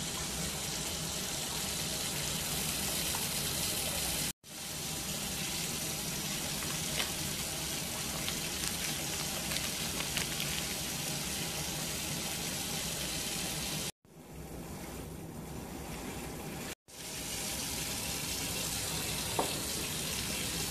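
Tap water running into a filling bathtub: a steady rushing hiss, cut off briefly about four seconds in and again about fourteen seconds in, and quieter for a few seconds after the second cut.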